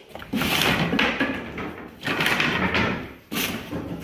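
Loose white oak flooring planks being slid and set down on tar paper, wooden scraping and clattering in three bursts of about a second each.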